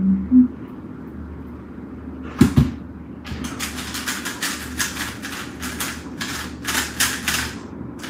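A 3x3 speedcube's plastic layers being turned very fast, a rapid run of clicking turns lasting about four seconds, after two sharp knocks about two and a half seconds in.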